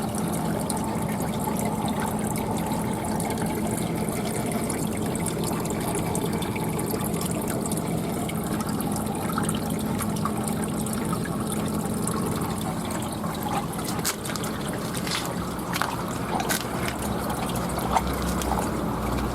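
Water trickling and splashing over a steady low machine hum, with a few sharp clicks near the end.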